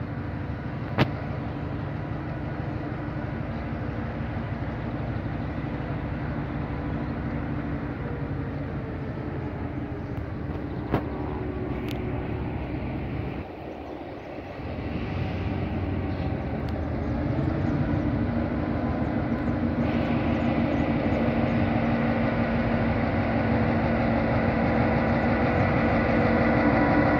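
Diesel engine of GA8 locomotive 5557 running as it slowly approaches hauling a ballast work train, growing gradually louder over the second half. Two sharp clicks stand out, about ten seconds apart.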